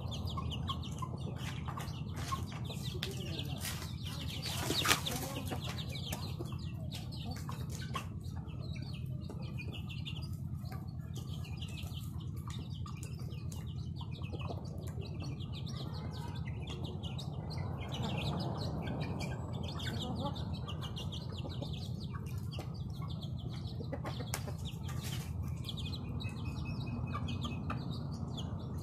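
Chickens of mixed ages feeding on grain scattered over cardboard: many quick pecks, chicks peeping and hens clucking, with one louder sharp noise about five seconds in, over a steady low hum.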